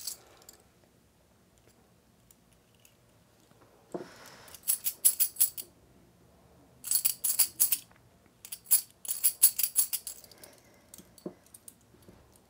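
Small metal coins clinking as they are shaken together in the hands for divination, in three quick bursts of rapid clinks after a soft knock on the table.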